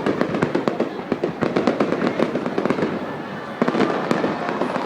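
Fireworks display: a dense run of overlapping bangs and crackles, several each second, with a brief lull about three seconds in and then a fresh volley.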